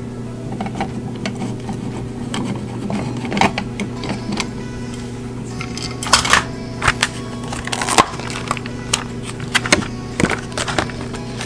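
Sharp clicks and crinkles from a plastic light-switch cover plate and its clear packaging being handled at the wall box, thickest a little past the middle, over a steady low drone.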